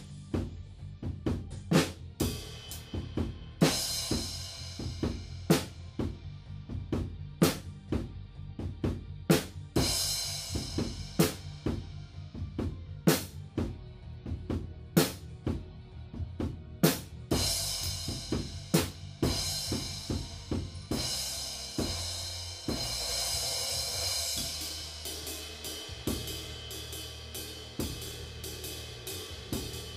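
Acoustic drum kit with Soultone cymbals played to a steady beat, with heavy accented hits about every two seconds. About two-thirds of the way in the playing turns lighter, with more cymbal and hi-hat wash.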